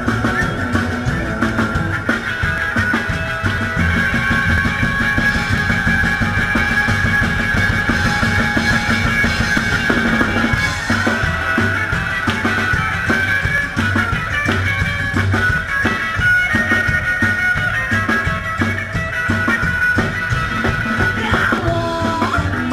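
Live rock and roll band playing an instrumental passage: a guitar carries the melody over a steady beat from upright double bass and drums.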